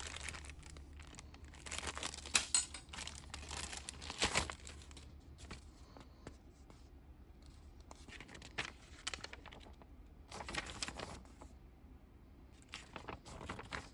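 Crinkling of a clear plastic zip bag of spare plasma-cutter consumables being handled, then rustling of a paper manual as it is unfolded and its pages turned, in short scattered bursts.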